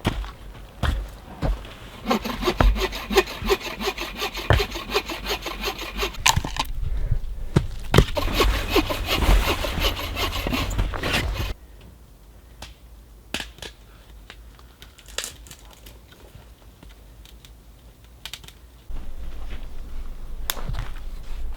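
Hand saw cutting through firewood in quick back-and-forth strokes, in two bouts that stop about eleven seconds in, followed by scattered light knocks.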